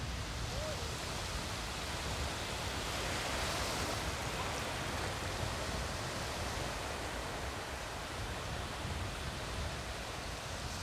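Surf washing and breaking in the shallows, a steady rushing noise that swells a little about three to four seconds in.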